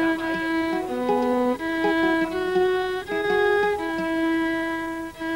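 Fiddle music: a bowed violin playing a tune of held notes, each lasting about half a second to a second, over short plucked notes beneath.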